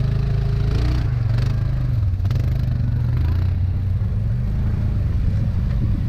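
ATV engine running at a fairly steady low pitch, with a few faint knocks over it.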